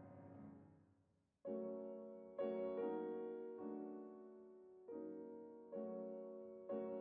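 Slow piano music. A held chord fades away, and after a short gap a new phrase of struck chords begins, about one a second, each ringing and dying away.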